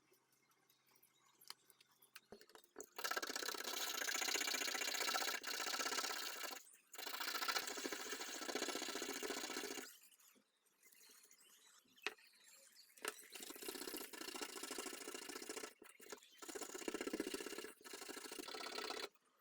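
Abrasive rubbing on the metal case of a Zippo lighter, in four stretches of about three seconds each, each starting and stopping abruptly, with short pauses between.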